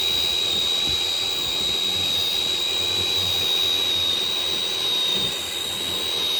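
Electric motor and speed controller of a radio-controlled crawler truck giving a steady high-pitched whine over a hiss while it pushes through snow.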